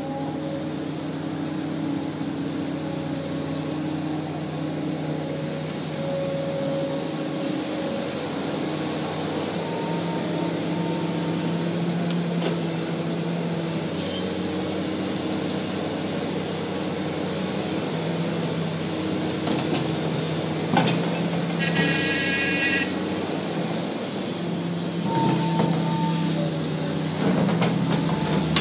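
Komatsu PC400 excavator's diesel engine running under load as the boom and bucket work, its pitch stepping up and down, with a few knocks and a brief high whine about two-thirds through.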